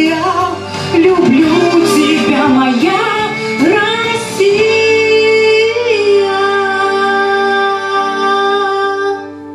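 A female voice singing the close of a patriotic song over instrumental accompaniment: a quick run of notes, then one long held final note from about four and a half seconds in.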